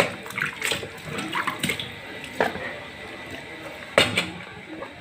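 Running water with a steady splashing hiss, broken by several sharp knocks and clinks, the loudest about four seconds in.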